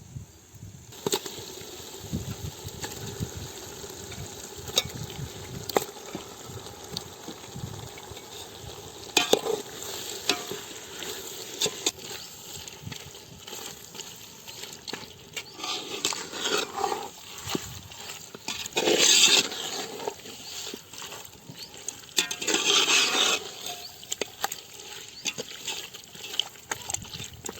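Raw chicken being stirred into hot masala in a cooking pot: a steady sizzle, with a ladle clinking and scraping against the pot. The scraping comes in louder bursts of stirring about two-thirds of the way in, and again near the end.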